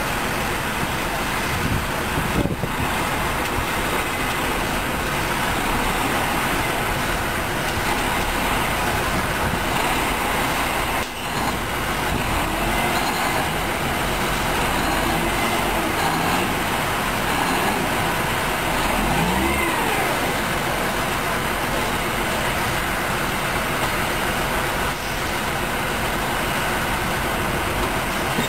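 Heavy diesel gin-pole winch trucks running steadily as they hold cables on an overturned trailer.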